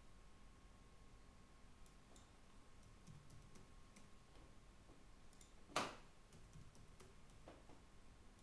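Faint computer keyboard typing: a few scattered key clicks, with one sharper, louder click a little before six seconds in.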